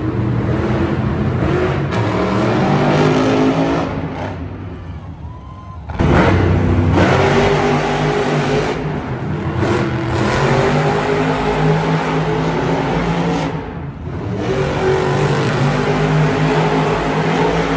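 Monster truck engines revving hard, their pitch rising and falling. The sound sinks about four seconds in and comes back suddenly loud at about six seconds.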